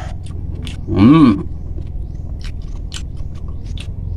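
Close-up mouth sounds of a person eating red grapes: wet chewing with scattered short lip and tongue clicks, and a brief voiced sound about a second in.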